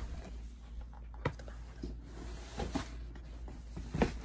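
Handling noise close to the microphone: a sharp knock about a second in, a few softer knocks and rustles, and a louder knock near the end, over a steady low hum.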